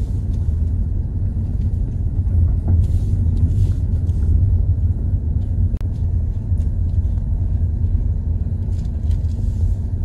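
Car cabin rumble while driving slowly over an unpaved road: a steady low rumble of tyres and engine, with a few light clicks and one sharper knock a little before six seconds in.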